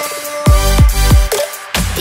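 Electronic background music with a heavy bass beat: repeated bass hits that drop quickly in pitch under held synth tones, with a brief drop-out about three-quarters of the way through.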